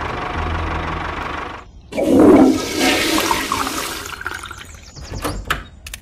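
A steady motor-like hum that breaks off, then a loud rush of water for about two seconds that fades, followed by a few sharp clicks near the end.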